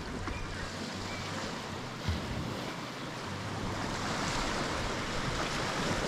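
Sea waves breaking and washing up on the shore, a steady rush of surf that swells louder in the second half.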